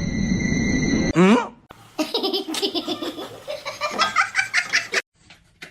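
About a second of rumbling noise, then high-pitched laughter in quick repeated bursts for about three seconds, stopping shortly before the end.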